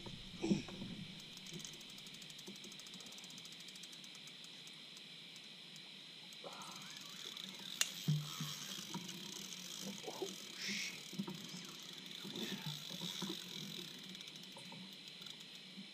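Spinning reel ticking under load while a large flathead catfish is fought on a hard-bent rod. A steady high-pitched drone runs underneath, with a few soft knocks and scuffs against the boat.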